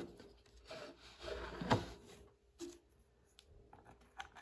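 Carved wooden puzzle box being put back together by hand: a wooden panel rubs as it slides shut and ends in a light knock, followed by a smaller knock and a few faint wooden clicks.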